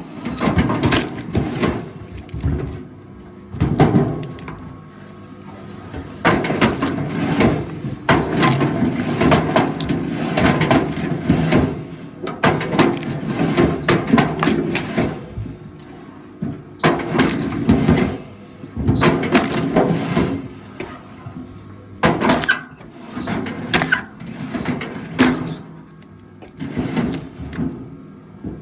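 Log splitter forcing logs apart, in repeated surges of creaking and cracking wood with brief squeals.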